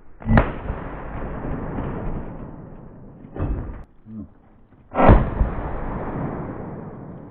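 Two gunshots from a 9mm CZ Scorpion, about five seconds apart, each followed by a long rolling echo that fades over two to three seconds.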